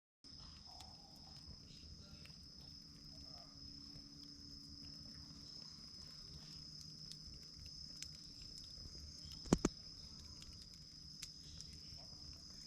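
Crickets trilling faintly and steadily in one unbroken high tone, with two sharp clicks close together about nine and a half seconds in.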